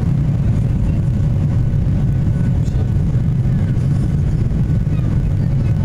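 Steady low rumble of a Boeing 737's jet engines and rushing air, heard inside the passenger cabin during takeoff.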